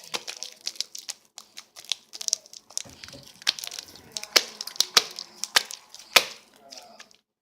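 Slime being squished and pulled by hand, giving a dense run of irregular crackles and sharp pops, the loudest pop about six seconds in.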